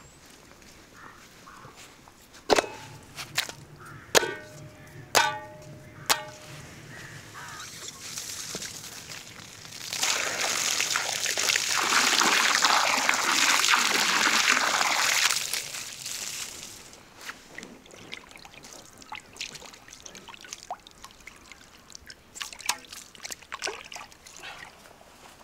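A stream of water pouring into an enamel basin full of raw beef tongues, loud and steady for about six seconds in the middle. Before it come a few sharp knocks and a brief ringing tone; after it, softer splashing and sloshing as the tongues are rubbed clean by hand in the water.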